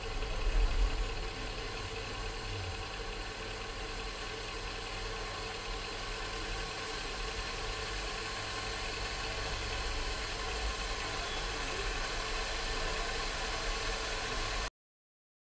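Bajaj Majesty ICX7 induction cooktop running at full power under a steel pot of water: a steady whir and hum with a hiss that grows slowly louder as the water heats, the cooktop now heating properly after its failed 4.7 µF 450 V capacitor was replaced. The sound cuts off suddenly near the end.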